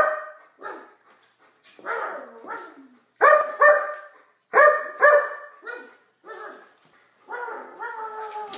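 German Shepherd barking at a finger puppet: a series of short barks, several coming in quick pairs.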